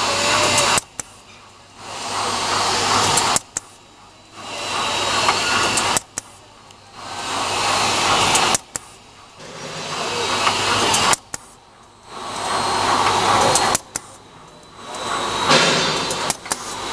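A pull-up diaper making machine running in a repeating cycle. A rushing noise builds up over a second or so, holds, then stops suddenly with a click, about every two and a half seconds.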